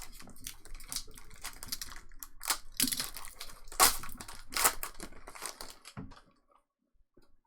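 Trading cards and their packaging being handled: a run of quick clicks, flicks and rustles that stops about six seconds in.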